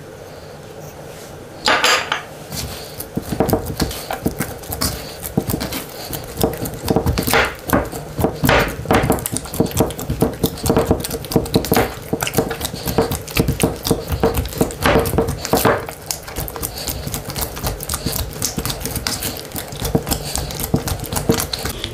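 Hands kneading a soft, freshly oiled yeast dough in a plastic bowl: an irregular run of wet squelches and clicks that starts about two seconds in and keeps going.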